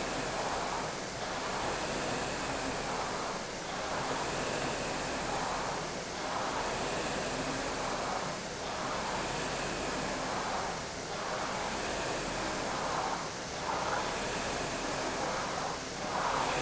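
Concept2 rowing machine's air-resistance flywheel whooshing in a steady rhythm, surging with each drive stroke about every two and a half seconds.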